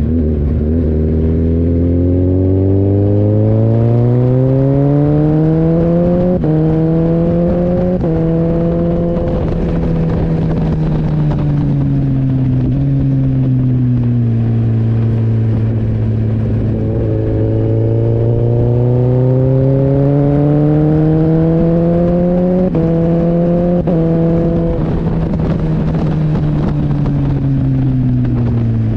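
Gen 2 Suzuki Hayabusa's 1340 cc inline-four accelerating hard, rpm climbing and stepping down with two quick clutchless quickshifter upshifts about six and eight seconds in, then falling away as the throttle is eased. It pulls again from about 17 seconds in, with two more quickshifted upshifts near 23 and 24 seconds, before the revs drop off again.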